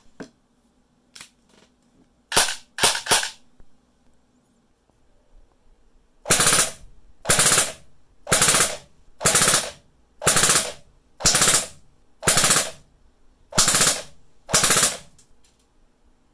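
Airsoft electric SMG gearbox (APEX Prowler with a Perun-kit electronic trigger) firing. A few quick single shots come first, then nine short full-auto bursts about a second apart, each a rapid mechanical rattle of half a second.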